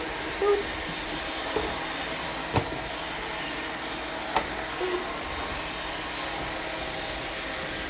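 Several robot vacuums running with a steady whir, sweeping up thin plastic confetti on a wood floor. A few sharp clicks and knocks stand out, about half a second, two and a half and four and a half seconds in.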